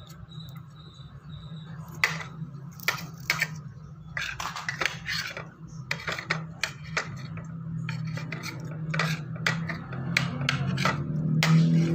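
Metal spoon scraping and clinking on a plastic plate in many short, irregular strokes, starting about two seconds in, as food is scooped up.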